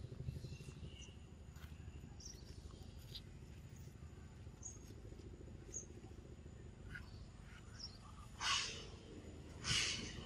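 Outdoor ambience around a troop of macaques: a steady low rumble with scattered faint, short high chirps, then two short, harsh bursts about a second apart near the end.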